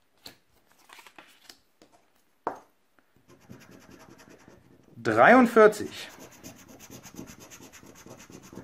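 A scratch-off lottery ticket being scratched with the fingers. First there are a few light clicks and taps as the card is handled. Then, from about three seconds in, a faint steady rubbing as the coating is worn off the number field.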